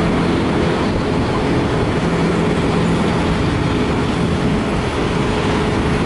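CN freight train cars rolling past: steady rumble and clatter of wheels on the rails, with a steady humming tone underneath.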